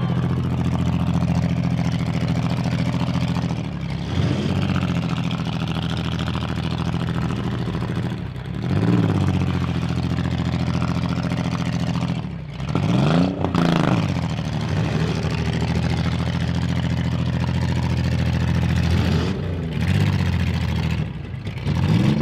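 Demolition derby car engines running loudly, revving up and dropping back several times as the cars push and ram each other.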